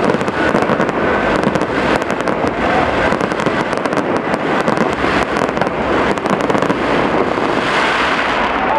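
Aerial fireworks going off in a dense, rapid barrage of bangs and crackles, thinning out near the end.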